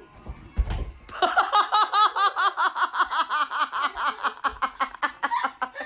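A thump under a second in, then a long run of rapid, high-pitched laughter, about six 'ha's a second, stopping near the end.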